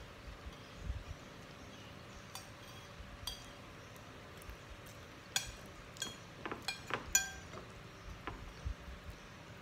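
Metal spoon and fork clinking and scraping against ceramic plates. There are a few scattered clinks, then a quick run of them about halfway through.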